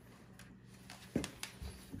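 A few faint clicks and knocks, the loudest just over a second in, as hands work a tight bolt and the hose-guide bracket on a garden tractor's frame, over a steady low hum.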